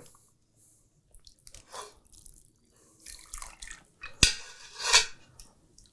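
Hot chicken stock dripping and splashing as cooked chicken pieces are lifted out of the pot with metal tongs, with a sharp click about four seconds in and a louder splash right after.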